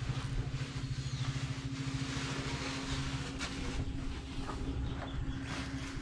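A motor running steadily at an even speed, a low pulsing hum with a faint hiss above it.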